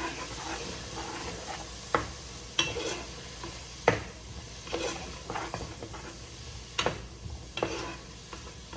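A utensil stirring and scraping in a pan of frying food, knocking sharply against the pan three times, over a steady sizzle.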